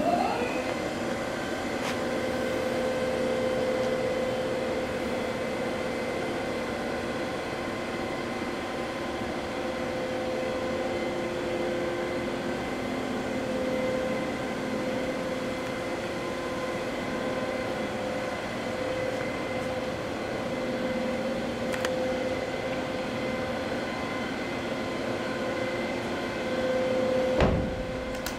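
Prodis PDL-1500L CNC vertical machining centre running, a steady mechanical hum and whine with several held tones. A short rising whine comes right at the start, and a brief louder sweep comes shortly before the end.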